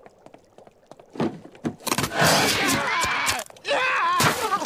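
Cartoon soundtrack: a brief knock, then a loud noisy scuffle, then a man yelling and screaming as a giant lobster forces him into a pot of boiling water.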